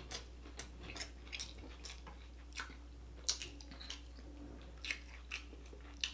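Close-miked chewing of a mouthful of burrito: irregular mouth clicks and smacks, about a dozen over a few seconds, over a steady low hum.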